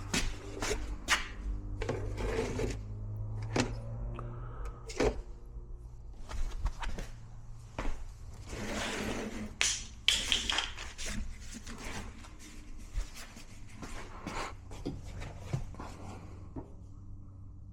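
Scattered clicks and knocks of an oil bottle and funnel being handled while oil is poured into a mower engine, with a longer rustling smear about eight to ten seconds in, over a steady low hum.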